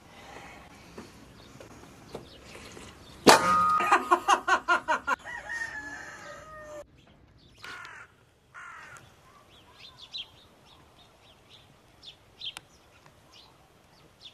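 A rooster crows once, about three seconds in: one long, loud call. Faint short chirps of small birds follow.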